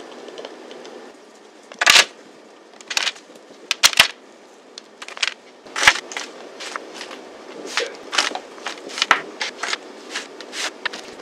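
Spatula knocking and scraping against a glass mixing bowl as clumps of chocolate oat granola drop onto parchment-lined metal baking trays: an irregular string of sharp taps and clicks, the loudest about two and four seconds in.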